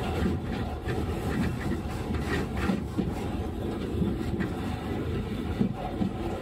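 Sapporo City Tram M100-class streetcar running, heard from inside the car: a steady low rumble of wheels and running gear with short clacks and rattles every second or so.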